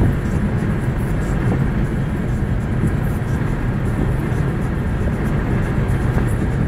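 Steady low road and engine rumble inside a car cabin cruising at highway speed.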